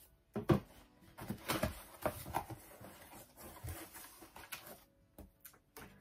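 Cardboard parcel being handled and its flaps pulled open: a series of brief rustles, scrapes and light knocks.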